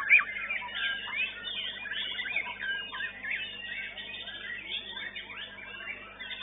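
White-rumped shama (murai batu) singing a fast, varied run of whistles and chirps, with notes gliding up and down; the loudest notes come right at the start.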